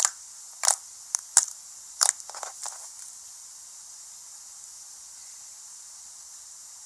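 Slime being squeezed and poked by hand, giving a quick series of sharp pops and clicks over the first three seconds, then only a faint steady hiss.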